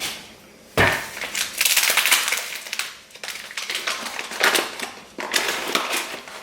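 A measuring cup scooping granulated sugar and tipping it into a mixing bowl: gritty crunching and rustling, with a sharp knock about a second in.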